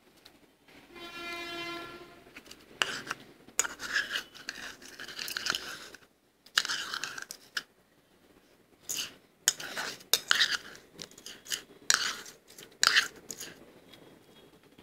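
Close-up mouth sounds of crunching and chewing soft freezer frost, in irregular bursts of crisp crackle that stop near the end. Before the chewing starts, about a second in, comes one steady-pitched tone lasting about a second and a half.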